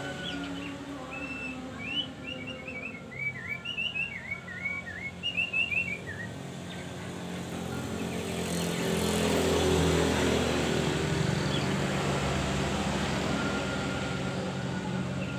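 Opior songbird singing a rapid run of short, high chirping notes for about six seconds, over a steady low hum. Later a broad noise swells up and fades away, like a vehicle passing.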